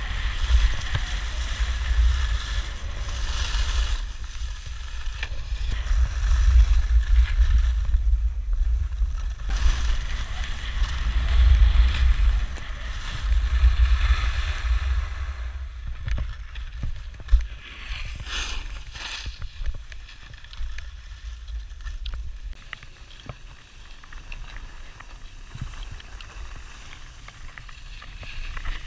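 Wind noise on an action camera's microphone during a fast ski-slope descent, with the hiss and scrape of edges sliding over snow. The wind rumble is heaviest in the first half and eases after about sixteen seconds.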